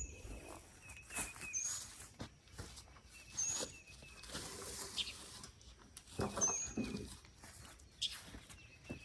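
Soil being tipped out of a tractor tire and worked through by hand to find potatoes: scattered soft thumps and rustles. A short high chirp repeats about four times among them.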